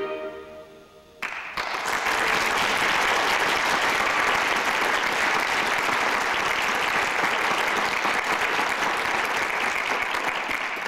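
The last chord of a clarinet choir dies away in the hall. About a second in, the audience breaks into steady applause.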